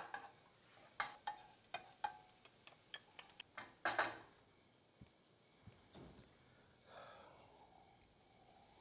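Light, irregular clicks and taps of kitchen utensils, about ten in three seconds with the loudest last, then a quiet kitchen.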